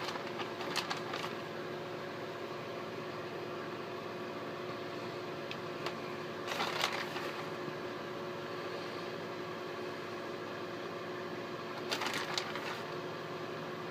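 A steady mechanical hum, like a kitchen appliance or fan running in a small room. Three brief clatters of kitchen handling come through it: about a second in, around six and a half seconds, and near twelve seconds.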